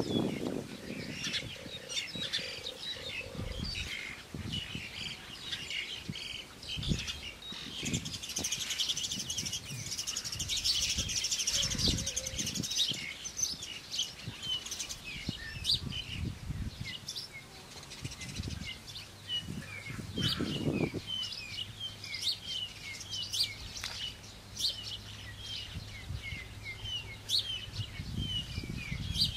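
Small birds chirping with many short repeated calls, thickening into a dense high trilling for a few seconds about a third of the way through. Now and then a dull knock or rustle of bamboo strips being handled and woven.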